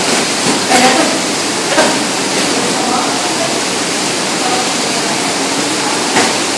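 A loud, steady hiss, with faint murmuring voices under it and a few soft knocks, about one and two seconds in and again near the end.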